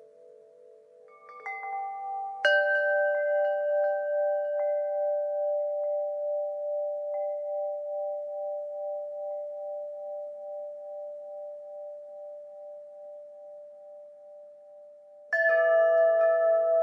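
Wind chimes: a few tubes struck in a quick cluster about two seconds in, ringing on with long, slowly fading, gently wavering tones, then a fresh cluster of strikes near the end.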